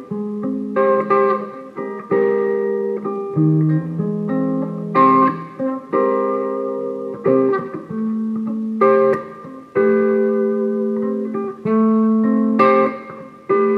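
Gibson Les Paul Custom electric guitar played through a Bugera V5 tube amp on a crunch setting. Picked notes and chords sound with a fresh attack about once a second, some held and ringing between.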